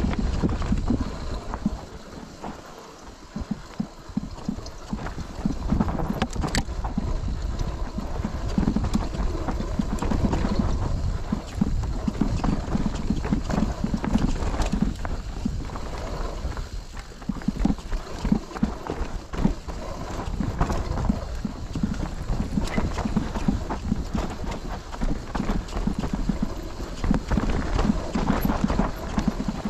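Mountain bike clattering and rattling down a rough trail: rapid, irregular knocks from the tyres and frame hitting rocks and roots, easing off briefly a couple of seconds in.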